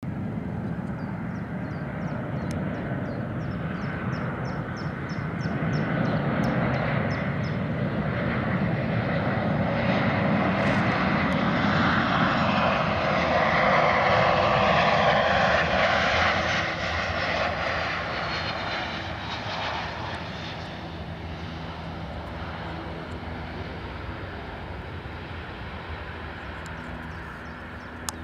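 Boeing 737-800's CFM56-7B jet engines on landing approach: a jet rumble and whine that grows, is loudest about halfway through as the aircraft passes, then fades, with a falling whine as it goes by and touches down.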